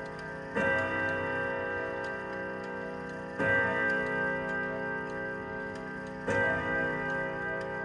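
Howard Miller grandfather clock striking on its chime rods: three strokes about three seconds apart, each ringing on until the next, with the pendulum's tick running underneath.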